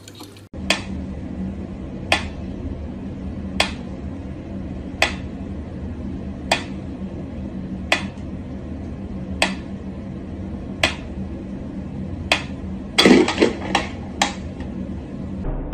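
Mechanical pyramid metronome ticking slowly and evenly, about one sharp tick every second and a half, over a steady low hum. Near the end there is a quick cluster of louder knocks and clatter.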